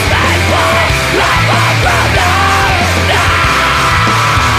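Loud punk/metal song: yelled vocals over a dense full band, with a long held high note from about three seconds in.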